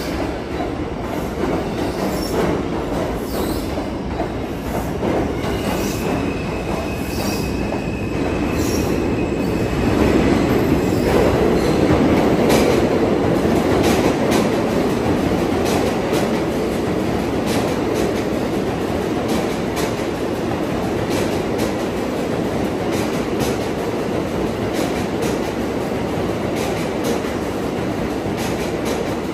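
New York City subway train running through the station: a continuous rumble with wheels clicking over rail joints, loudest about ten to fifteen seconds in, and a brief thin wheel squeal about six seconds in.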